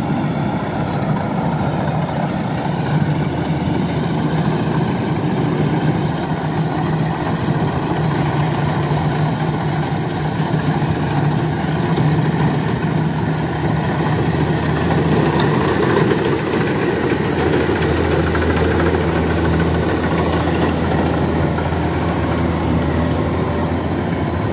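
Kubota combine harvester's diesel engine running steadily under load while harvesting rice, with the even hum of the machine's threshing and cutting gear. A deeper low hum grows stronger about two-thirds of the way through.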